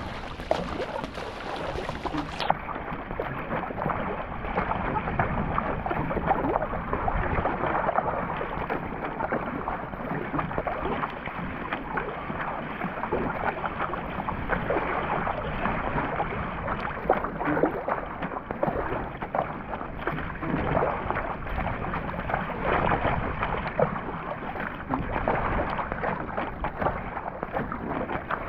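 Surfski being paddled on open ocean: water splashing and rushing at the paddle blades and along the hull, with wind noise on the microphone.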